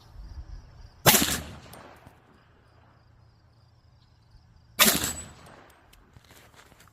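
Two rifle shots about four seconds apart, fired at a steel plate target, each trailing off over about a second.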